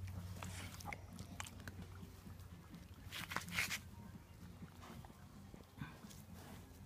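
Eight-week-old puppies mouthing and chewing on grass and each other: small gnawing clicks and rustling, with a louder short rustle about three seconds in.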